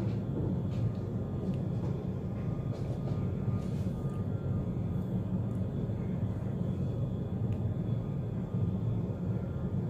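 A steady low rumbling hum that holds level without rising or falling, with a few faint ticks over it.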